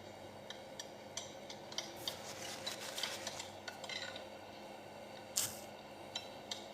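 A spoon scraping and clinking against a plate during a meal, a run of small irregular clicks with one sharper clink about five and a half seconds in.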